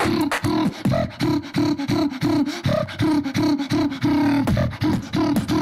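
Human beatboxing: short buzzing bass notes about twice a second, interleaved with sharp mouth clicks and snares in a fast, unbroken rhythm.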